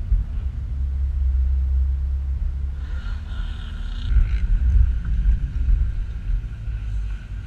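Low rumble inside the cabin of a 2013 Subaru Outback driving over sand. A steady higher whine joins about three seconds in.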